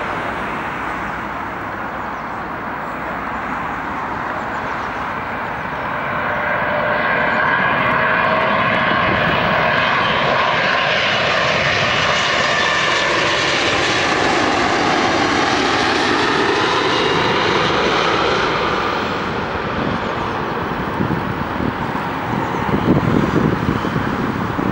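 Saudi Arabian Airlines Boeing 777 twinjet passing low overhead on final approach. The jet noise swells to a peak with whining engine tones that slide down in pitch as it goes over, then fades. Near the end a car passes.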